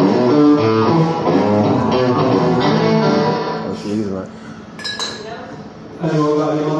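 A live rock band playing through a PA, with electric guitars and vocals. The band drops away for about two seconds around the middle, then comes back in.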